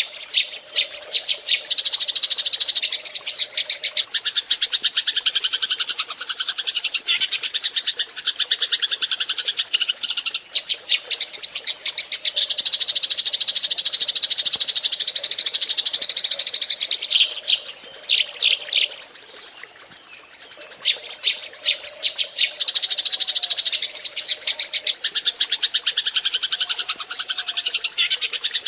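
A flock of Eurasian tree sparrows chirping and chattering rapidly and densely, with a brief lull about two-thirds of the way through. It is a recording of the kind played as a lure to draw sparrows in.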